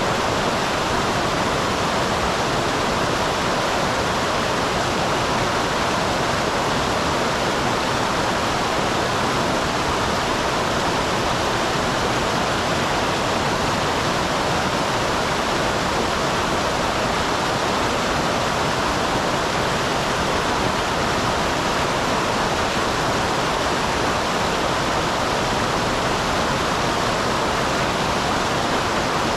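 Small waterfall on a mountain stream, water falling and rushing in a steady, unbroken roar.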